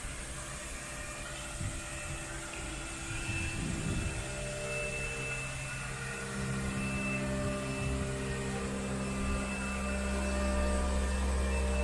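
Steady machine hum with several held pitched tones, growing louder and deeper as new low tones come in about six seconds in and again near the end.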